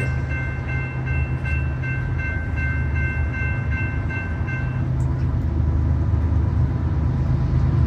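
Low, steady rumble of an approaching freight train's diesel locomotive, a GE ES44AC, growing louder toward the end. A railroad crossing bell rings in quick, even strokes over the first five seconds, then stops.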